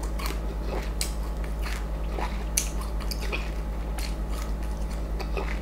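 Close-miked chewing of juicy mango flesh: irregular wet squishing and smacking mouth clicks, with one sharper click about two and a half seconds in. A steady low hum runs underneath.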